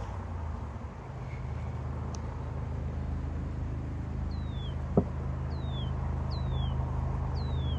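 A steady low hum throughout, with a bird repeating a short falling whistle about once a second from about four seconds in, and a single sharp click around five seconds.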